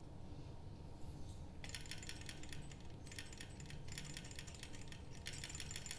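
Small model Stirling engine's flywheel and crank linkage clicking rapidly as it is turned by hand and started under the flame, the clicking setting in about a second and a half in, with short breaks near the end.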